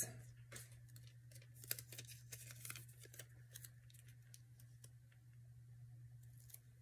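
Faint rustling and light clicks of paper stickers being handled and pressed onto a paper collage page, busiest in the first few seconds, over a steady low hum.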